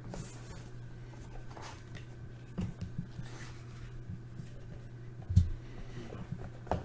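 Trading-card packaging and cards being handled on a table: soft rustles and a few light knocks, the loudest about five seconds in, over a steady low hum.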